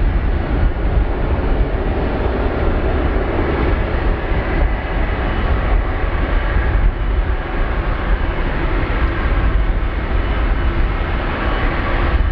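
Jet airliner engines running close by: a steady, loud jet rumble with a broad rushing noise above it.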